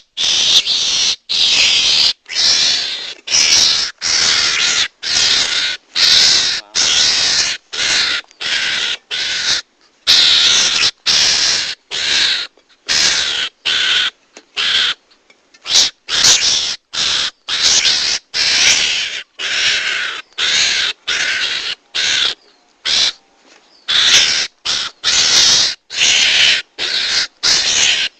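Mongoose lure call (garangan calls) played back: harsh, raspy calls repeated in quick succession, well over one a second, with a couple of short pauses.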